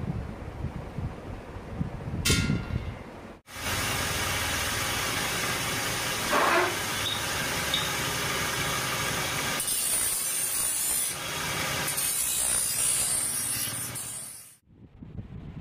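Edge of a steel axe pattern being ground on a small belt-driven abrasive wheel: a steady grinding hiss, turning harsher and brighter at times as the plate is pressed on. A short scrape of chalk on the steel sheet comes before it, about two seconds in.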